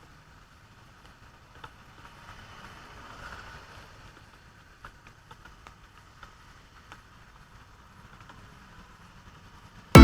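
Faint traffic noise with scattered light clicks. Loud music cuts in suddenly at the very end.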